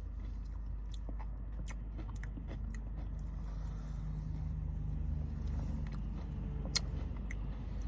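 Someone eating a mouthful of Oreo McFlurry: scattered small clicks and smacks of chewing over a steady low hum.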